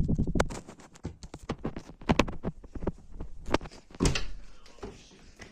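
A run of irregular knocks and clicks, dense and loud at first, then sparser, with a louder knock about four seconds in.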